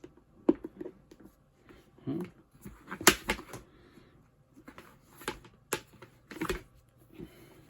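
Handling of a folding mini washing machine's plastic parts: scattered clicks, taps and knocks with some rustling, the sharpest knock about three seconds in and a cluster of clicks between five and seven seconds.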